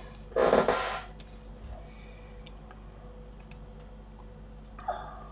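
A short, loud burst of breath noise from a narrator with a respiratory illness, lasting about half a second and coming about half a second in. Then come a few faint computer-mouse clicks over a faint steady electrical whine.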